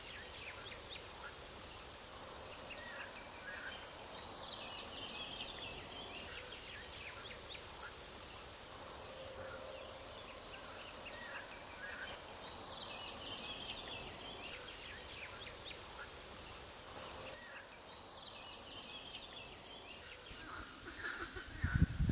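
Wild songbirds singing by a lake, a short chirping phrase repeated every several seconds over a faint steady outdoor hush. Low rumbles come in near the end.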